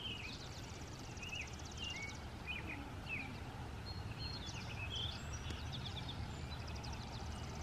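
Outdoor ambience of several birds chirping and calling in short whistled notes, with a fast high trill twice, over a steady low rumble.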